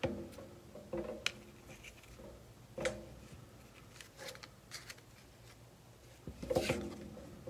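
Paper and lace trim being handled on a cutting mat: a crinkled brown paper bag rustling, with scattered light taps and rustles, the loudest cluster near the end.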